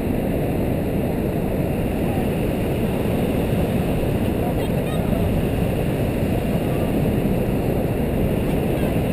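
Steady, dense rushing of the water of Niagara's Horseshoe Falls, an even low-heavy noise that holds the same level throughout.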